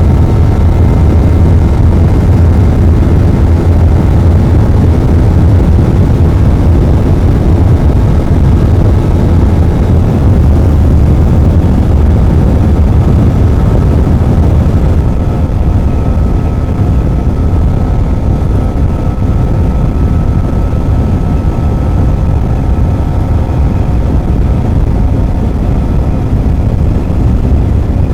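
Motorcycle riding at a steady speed, its engine note a steady hum under heavy wind rumble on the microphone. The sound eases slightly about halfway through.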